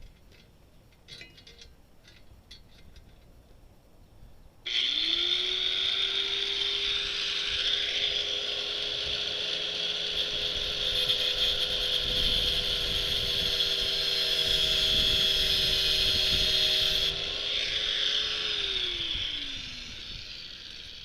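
Faint handling clicks, then about four and a half seconds in a power cutting tool starts, its motor whine rising quickly to a steady pitch under a loud high grinding hiss as the wheel cuts through a bicycle chain. The grinding stops about four seconds before the end and the motor winds down.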